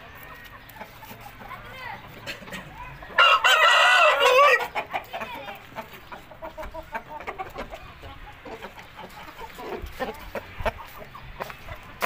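A rooster crowing once, loud, about three seconds in, the crow lasting about a second and a half. Quieter clucking and small clicks and knocks fill the rest.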